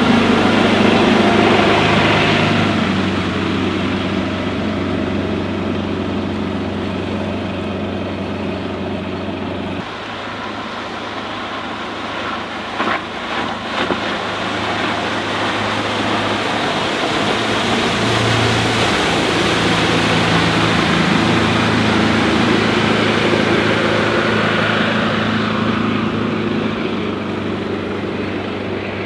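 Motorboat engine running steadily at speed, with rushing water and wind. The engine tone changes suddenly about ten seconds in, and there are a few short clicks a little later.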